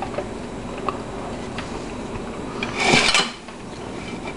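Spiral-cut cucumber being handled on a plate: a few light clicks, then one brief scraping rub about three seconds in.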